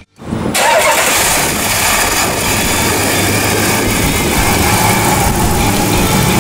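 Dodge 5.7-litre Hemi V8 engine idling steadily; the sound cuts in suddenly just after a brief silence.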